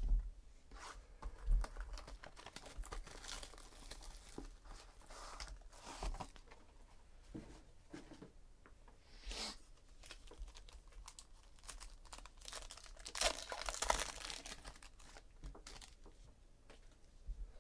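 Paper and foil wrapping of a Panini Gold Standard card pack being torn and crinkled by hand in irregular bursts, loudest about three-quarters of the way through. A few light knocks near the start as the box is handled.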